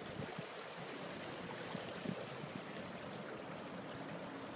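Steady rushing wash of water against the hull of a tugboat under way.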